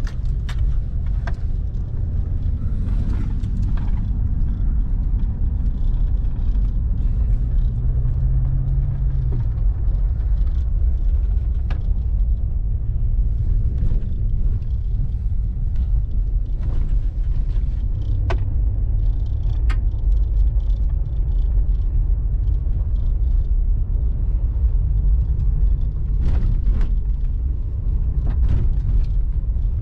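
Vehicle driving slowly over a rough dirt trail, heard from inside the cabin: a steady low rumble of engine and tyres, with a few sharp knocks and rattles scattered through.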